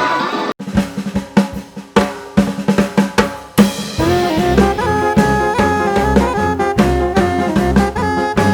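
Music: a drum break of sharp, spaced hits, then about three and a half seconds in a full band with a steady bass line comes in.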